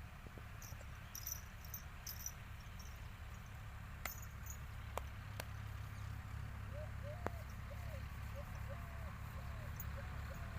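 A steady low hum with faint high chirps and a few sharp clicks. From about halfway, a series of short chirping calls repeats a few times a second.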